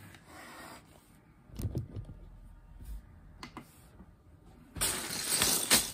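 A few scattered light clicks of small plastic Lego pieces being handled. About five seconds in comes a loud, dense rustle of a clear plastic bag full of Lego bricks being rummaged, with the bricks rattling inside.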